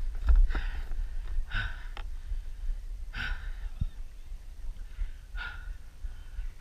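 A kayak angler breathing hard close to the microphone after landing a fish: four loud breaths spaced about one and a half to two seconds apart, over a steady low rumble.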